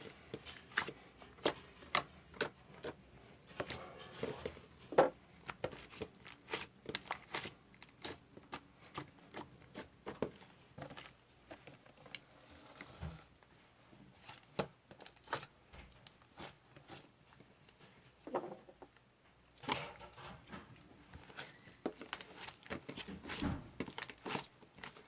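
Homemade slime, stiffened with a little added cheese slime, being squeezed, stretched and folded by hand, giving irregular sticky clicks and pops several times a second.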